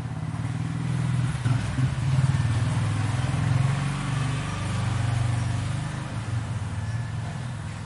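An engine running with a deep, steady rumble that swells and eases in level.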